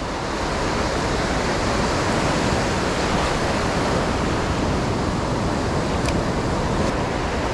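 Surf at the water's edge: small waves breaking and foam washing up over the sand, a steady rush of noise.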